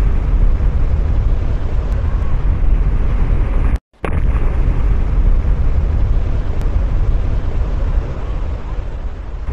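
Muddy floodwater torrent rushing past: a loud, continuous low rumble of churning water and debris, cut off briefly just before four seconds in and then running on.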